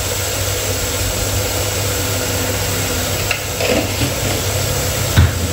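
Onion-tomato masala frying in a pan: a steady sizzling hiss over a low steady hum, with a single knock about five seconds in.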